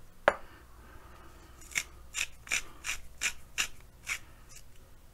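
Hand spice mill being twisted to grind pepper and salt: a sharp click, then about seven short crunching grinding strokes, roughly three a second.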